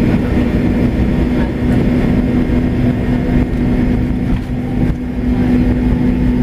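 Cabin noise of a McDonnell Douglas MD-88 taxiing: a steady rumble from the wheels and airframe under a constant hum from its tail-mounted Pratt & Whitney JT8D turbofans at low power.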